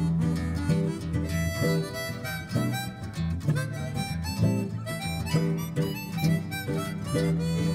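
Live harmonica solo over two acoustic guitars, an instrumental break in a folk song with no singing.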